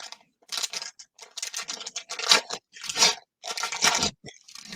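Crinkling plastic trading-card packaging being handled, in a series of about six short bursts.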